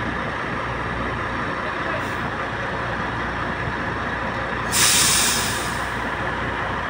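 Diesel engine of a brand-new Sany tractor head running as the truck creeps forward. About two-thirds of the way through, a sudden loud hiss of released air sounds and fades over about a second, typical of the air brakes being set as it stops.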